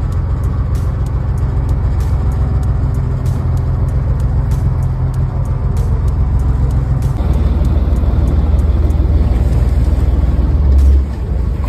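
A fishing boat's engine running steadily with a low hum. About seven seconds in it gives way to a deeper, rougher rumble, which drops off sharply near the end.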